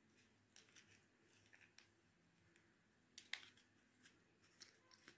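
Faint, scattered small clicks and scrapes of fingers handling a small plastic mascara tube and its brush while it is being filled.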